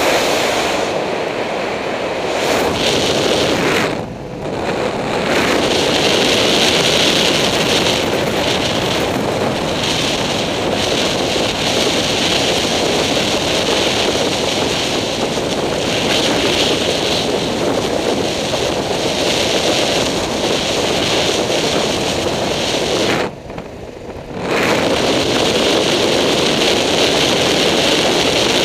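Steady rushing wind noise on the microphone of a camera mounted on a moving vehicle, with road and motor noise mixed in. It drops away briefly about four seconds in, and again for about a second a few seconds before the end.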